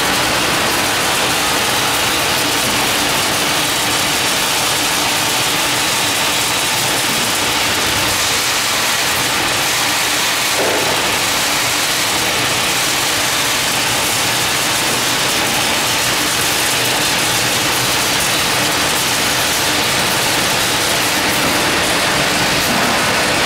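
Industrial continuous nut frying line running, with a steady machine noise and nuts pouring and rattling off a stainless-steel discharge chute into a steel bin.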